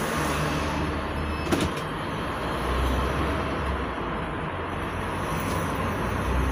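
Cabin noise of a 2017 GAZelle Next minibus under way: its Evotech 2.7 engine hums low and steady under road and tyre noise, with a single sharp knock about a second and a half in.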